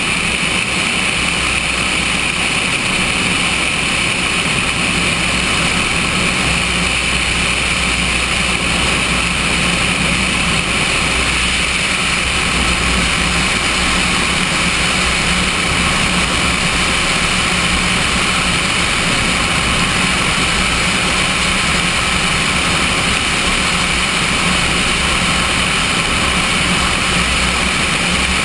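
Cessna 172's piston engine and propeller running steadily on final approach, with air rushing past the camera mounted outside the fuselage. The sound holds steady throughout.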